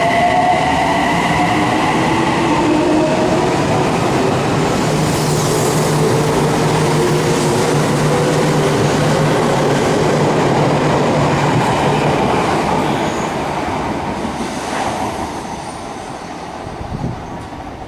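Electric commuter train pulling out of the station: its traction-motor whine rises in pitch as it accelerates, with the rumble of the wheels on the rails, and the sound fades away after about twelve seconds.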